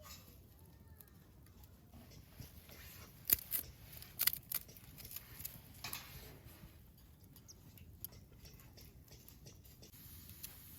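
Wood in a campfire crackling, with scattered sharp pops at irregular intervals, a cluster of the loudest a little past the middle.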